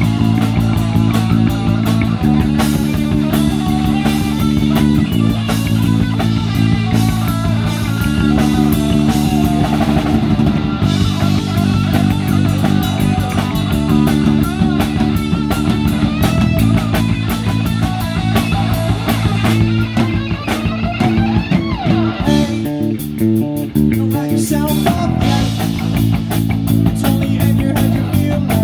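Live rock band playing an instrumental passage: electric guitar lines over a repeating bass riff and a drum kit. The bass and drums change pattern briefly about three quarters of the way through.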